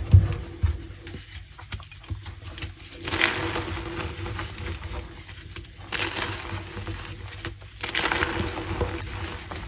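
Reformed gym chalk crushed and squeezed by hand, crunching and squeaking in several bursts, the strongest about three, six and eight seconds in.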